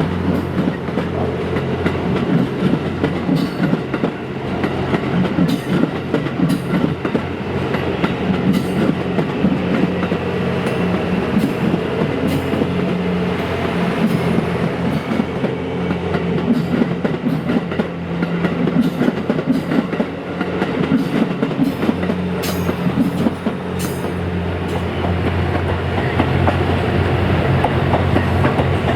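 Series 87 Twilight Express Mizukaze diesel train passing slowly over points: a steady low engine hum with irregular clicking from the wheels over the rail joints.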